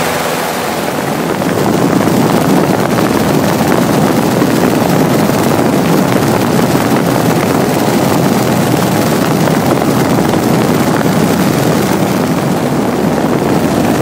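Cessna light aircraft's engine and propeller droning steadily in flight, heard inside the cabin; it gets louder about a second and a half in.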